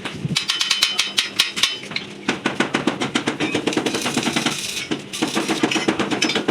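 Background music with fast, even drum beats over a sustained low note, briefly dropping out twice.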